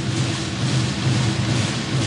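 Rapid, continuous drumming, a dense rolling beat with no break.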